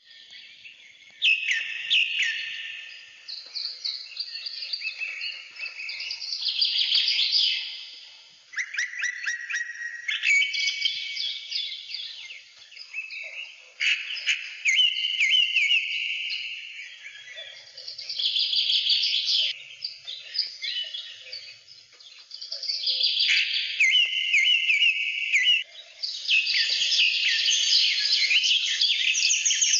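Birds chirping and singing: quick, varied high chirps and trills in phrases with brief pauses between them.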